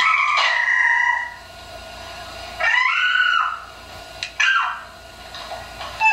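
A baby's high-pitched squeals: three short squeals that rise and fall in pitch, with a sharp click about four seconds in.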